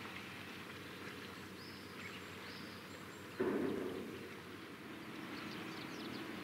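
Steady low outdoor background noise with a few faint high chirps. About halfway through, a sudden loud rush of noise cuts in and fades over about half a second.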